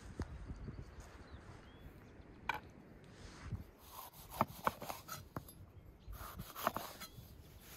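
Scattered light taps and knocks of vegetables and dishes being handled on a table. Near the end, a kitchen knife cuts a green bell pepper on a wooden cutting board with a few sharp knocks.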